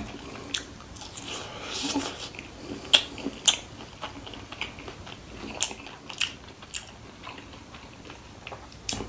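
Close-miked chewing and biting of crispy fried chicken popcorn, with sharp crunches every second or so between quieter chewing.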